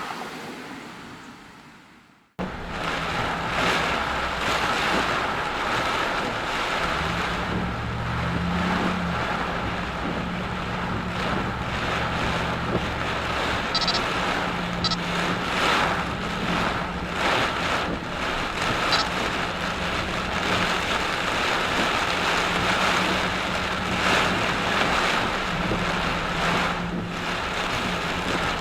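Storm wind gusting hard across the microphone in a steady loud rush, with a low steady hum underneath. It starts abruptly about two seconds in, after a moment of near silence.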